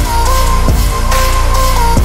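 Loud background music: a held melody line stepping in pitch over heavy bass, with regular drum hits.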